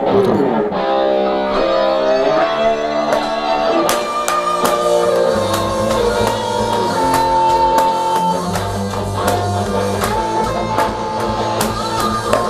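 Multitrack music playing: an electric guitar part with bass, and electronic drum kit hits coming in about four seconds in.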